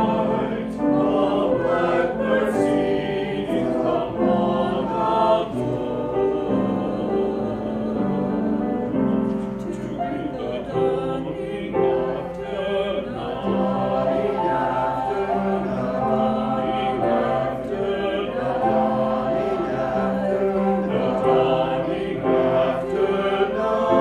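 A small mixed choir of men and women singing together in harmony, holding sustained notes in several parts.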